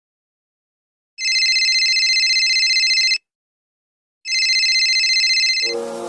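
Telephone ringing with a high electronic ring: two rings of about two seconds each, a second apart.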